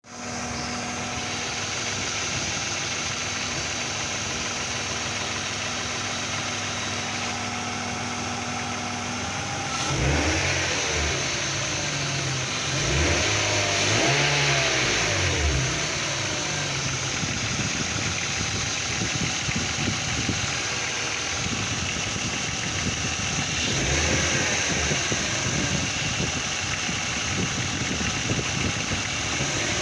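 Car engine idling steadily, then revved up and back down a few times from about ten seconds in. Through this there is a knocking in the engine whose cause the owner does not know, plainest in the last ten seconds or so.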